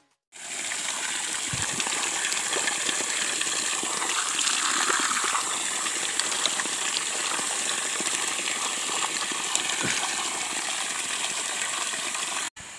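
A small jet of water gushing steadily and splashing onto wet ground. It cuts off suddenly near the end.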